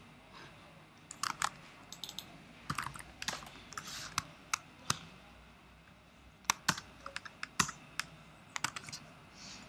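Typing on a computer keyboard: scattered keystrokes in short, irregular bursts with pauses between them.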